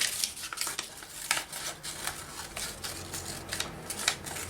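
Scissors cutting paper: irregular snips and clicks, with light rustling of the paper between cuts.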